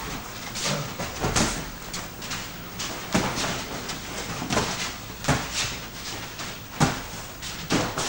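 Boxing gloves thudding as two boxers spar, with their feet scuffing on the ring floor: irregular sharp knocks, roughly one every second or so, with a few coming in quick pairs.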